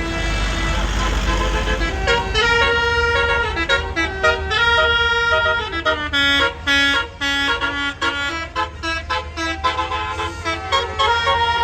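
Tour bus's 'basuri' telolet musical horn playing a tune in stepped notes, held notes first and then quick short notes from about halfway in, over the low running of the bus engine.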